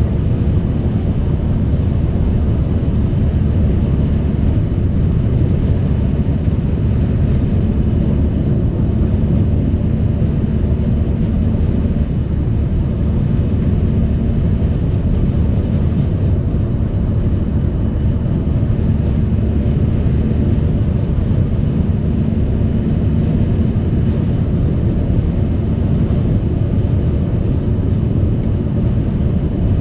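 Steady low road-and-engine rumble of a car driving along.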